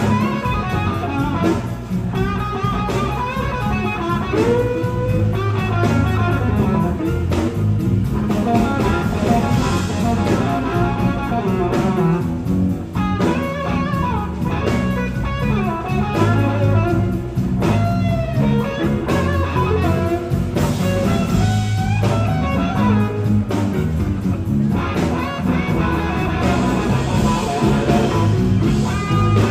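Live blues-rock band playing an instrumental passage: two electric guitars, an SG-style and a Les Paul-style, play lead lines with bent notes over bass and drums.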